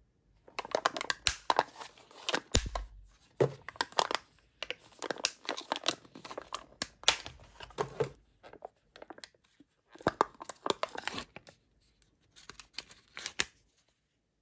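Plastic Snack Pack pudding cups being bent and snapped apart from their multipack, then a peel-off lid torn back from a cup, in a series of crackling, tearing bursts with short pauses.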